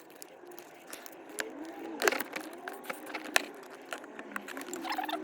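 Sharp clicks and snaps of snips cutting metal staples, and of the staples being prised out of a leather gear stick gaiter and its plastic surround. The loudest snap comes about two seconds in and another a little after three, over faint drawn-out low tones.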